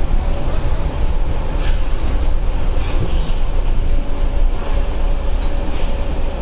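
KL Monorail train running at speed along its elevated concrete guideway, heard from inside the car: a steady, loud low rumble with a faint, even whine. A few brief clatters come through about two, three and six seconds in.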